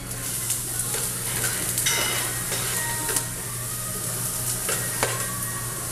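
Vegetables sizzling on a hot steel teppanyaki griddle, a steady hiss, with a handful of sharp metal clicks and scrapes from the chef's utensils on the steel surface.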